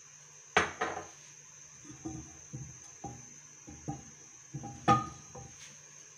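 Metal frying pan knocking and clattering against a gas stove's grate as it is tilted to swirl hot oil. It makes a series of short, ringing knocks, the loudest about five seconds in.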